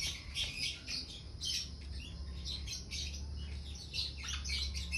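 Birds chirping and squawking, a dense run of short, high calls overlapping one another.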